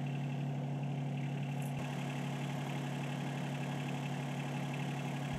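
Engine of a log-lifting machine idling with a steady, even hum.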